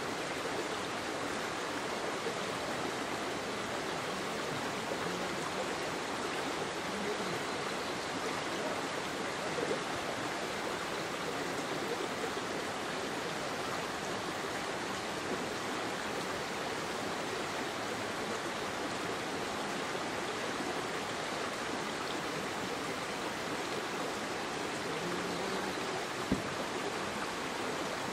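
A creek flowing, an even rushing of water, with one short sharp click near the end.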